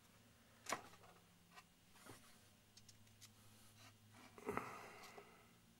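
Near silence with a faint low hum and a few light clicks and knocks of handling, a sharp one under a second in and the loudest about four and a half seconds in, as a small model cargo pallet is set down on the diorama base.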